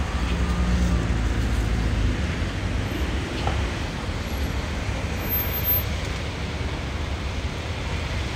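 City street traffic: a steady low rumble of passing vehicles, louder in the first two seconds, over general road noise.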